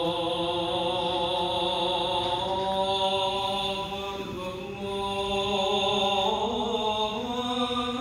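An imam's voice chanting a long, drawn-out melodic line of Islamic recitation. It holds steady notes, then rises in pitch about six seconds in.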